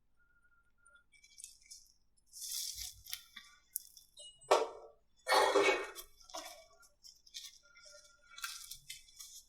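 Slime being squeezed and pressed by hand: irregular crackling and squishing sounds, the loudest two a little past halfway.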